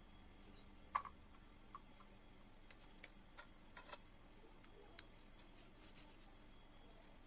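Near silence with a few scattered short clicks and taps, the loudest about a second in.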